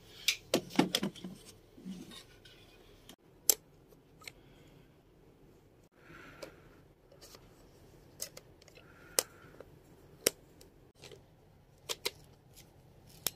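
Small sharp plastic clicks and rattles from handling a Canon EOS 2000D DSLR camera, its battery and lens cap: a quick run of clicks in the first second or so, then single clicks every second or two.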